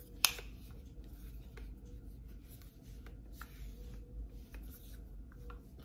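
Hands handling a plastic smartphone gimbal: one sharp click about a quarter second in, then light ticks and rubbing as it is turned over.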